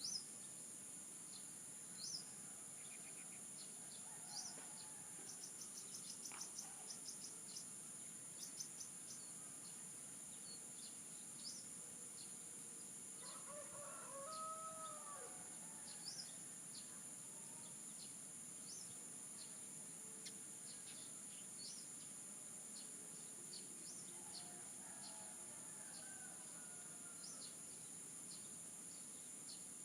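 A rooster crowing once about halfway through, with a fainter crow near the end, over many short high bird chirps and a steady high insect drone.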